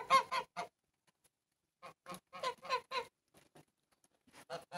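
Domestic white geese giving quick runs of short honks: a burst at the start, another about two seconds in, and a few more near the end.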